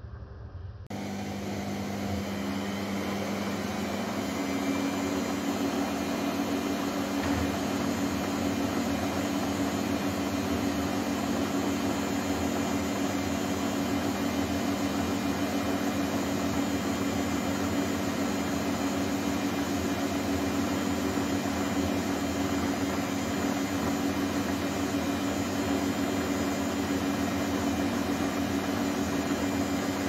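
Teka front-loading washing machine spinning its drum at a steady speed with water still in the tub (a spinwash): a steady motor hum over a noisy wash. The sound jumps in abruptly about a second in and then holds steady.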